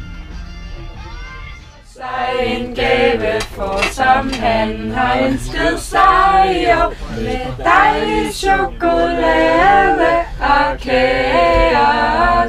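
A group of people, women's voices among them, singing a birthday song together, starting about two seconds in.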